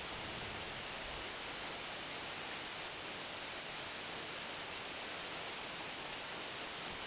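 Steady rainfall, an even hiss of many drops that does not change.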